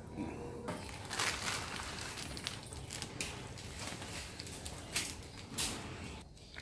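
Plastic instant-noodle packet crinkling and rustling in the hands as the dried noodle block is pulled out, with sharper crackles about a second in and again near the end.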